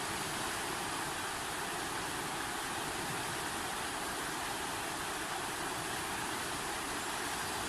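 Flowing water rushing steadily, an even hiss without breaks or changes.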